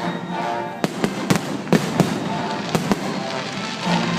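Fireworks going off in sharp, irregular bangs, several in quick succession, over music with long held notes.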